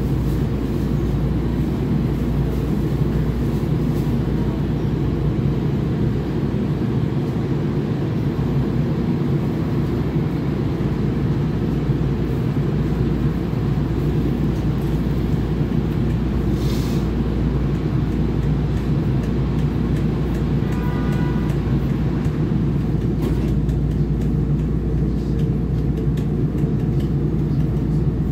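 Steady low hum inside a SEPTA Market-Frankford Line M-4 subway-elevated car standing at a station platform. A brief hiss comes about 17 seconds in, and a short chime-like tone about 21 seconds in, before the train pulls out.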